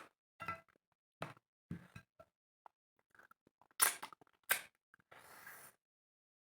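Close-up eating sounds: a string of short clicks and smacks from chewing and handling chicken and rice, with a brief rustle about five seconds in.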